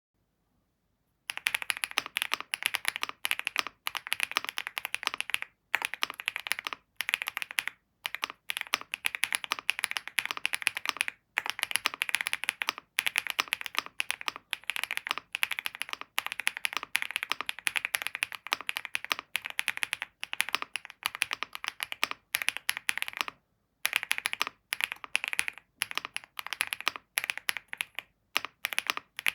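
Typing on a Wob Rainy 75 mechanical keyboard: fast, continuous keystroke clicks starting about a second in, broken by a few short pauses.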